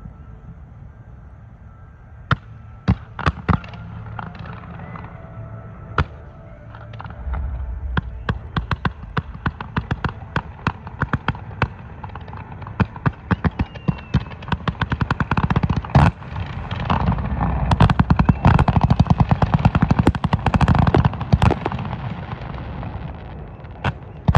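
Fireworks display: scattered single bangs at first, building after several seconds into a rapid barrage of bangs and crackles that is densest and loudest past the middle, then eases slightly near the end.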